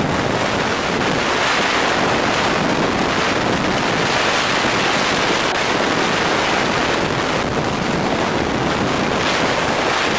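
Steady rush of freefall wind over the microphone of a skydiving camera.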